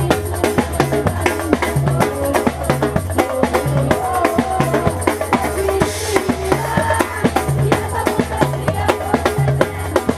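Samba batucada percussion group playing: dense, driving drumming with a steady pulsing bass drum and crisp snare strokes, and some sustained melody over the rhythm.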